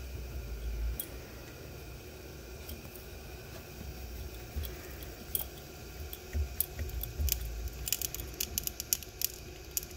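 Handling sounds of an underwater cable connector being worked onto its port on the ROV: scattered small clicks and rubbing of the connector and cables against the frame, with a quicker run of ticks about eight seconds in.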